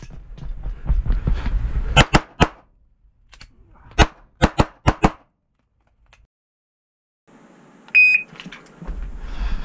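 Rapid 9mm pistol shots from an SPS Vista Star open race pistol loaded to major: three quick shots about two seconds in, then four more around four to five seconds in. About eight seconds in, a shot timer's short electronic start beep sounds, followed by rumbling movement noise.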